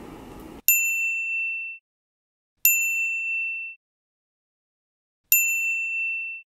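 Three identical bright bell-like ding sound effects, each struck once and ringing out for about a second, spaced about two to two and a half seconds apart, with dead silence between them.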